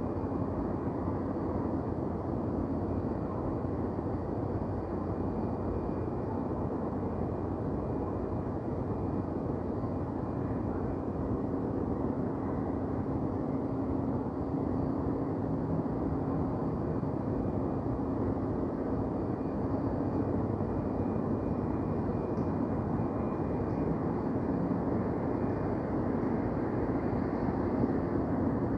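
Downtown city ambience: a steady low rumble of distant traffic with a faint constant hum running through it.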